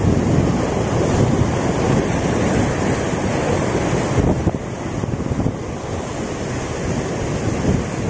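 Sea waves washing against a rocky shore in heavy surf, with strong wind buffeting the microphone. The sound eases a little about halfway through.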